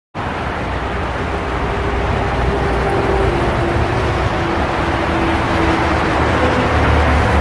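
Busy highway traffic: a steady rushing wash of tyre and engine noise from many passing vehicles, starting abruptly just after the beginning. A faint tone slides slowly down in pitch partway through as one vehicle goes by.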